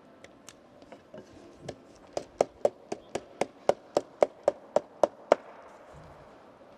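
Thin wooden kumiko pieces being tapped home into a shippō lattice with a wooden block. A few light taps build into a run of about a dozen sharp wooden knocks, about four a second, which stop about a second and a half before the end.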